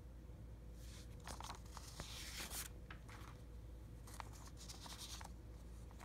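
A hand-held stack of paper sheets rustling and crinkling as the top sign is shuffled off to reveal the next. The rustling comes in two bouts, about a second in and again around four seconds, with small clicks of paper edges.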